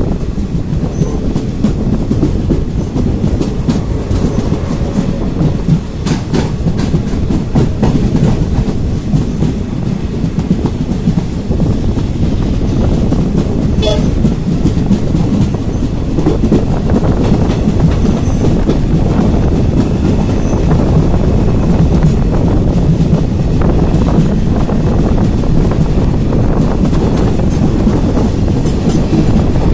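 Passenger train running at speed, heard from a coach window: a steady rumble of wheels on rails, with clicks now and then as the wheels pass over rail joints.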